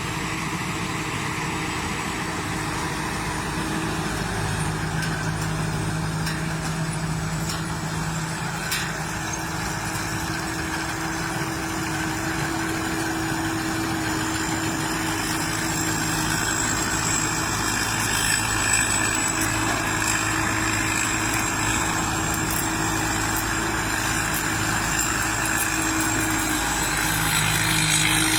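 Combine harvester engine and machinery running steadily, with a thin high whine over the engine note, getting slightly louder in the second half.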